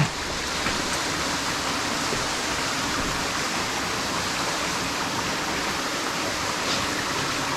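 Steady rush of falling and flowing water from Santa Ynez Falls and its creek. The seasonal waterfall is still running.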